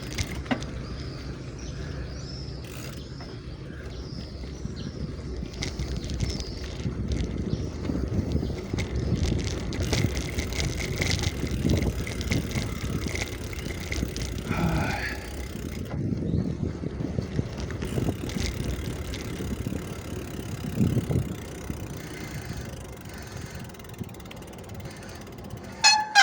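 Bicycle being ridden: steady low rumble of wind and rolling noise, with a short high squeal about halfway through and wavering squeals near the end from the squeaking brakes.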